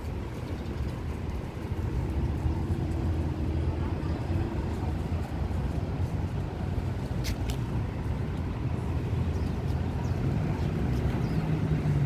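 Steady low rumble of road traffic and bus engines, with a faint engine hum growing near the end and a single click about seven seconds in.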